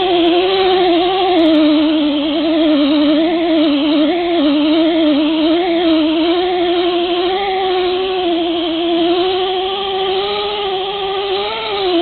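Electric rotary buffer running steadily under load, a worn Scotch-Brite pad scrubbing a wet aluminium wheel; its motor whine wavers slightly in pitch as the pressure on the pad changes.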